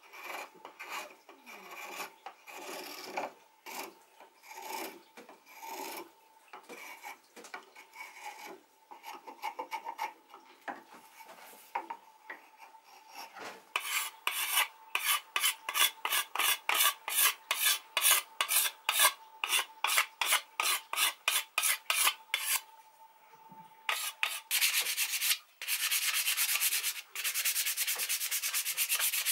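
Hand tools working an oak spoon handle. For the first dozen seconds a bronze Lie-Nielsen spokeshave cuts shavings in uneven strokes. About halfway through a steel card scraper takes over in fast, even strokes, roughly three a second. Near the end sandpaper rubs against the wood in a nearly continuous hiss.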